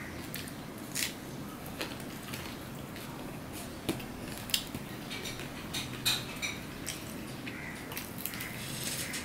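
Eating rice by hand from a stainless steel plate: fingers squish and mix the rice and scrape against the metal, with scattered short sharp clicks.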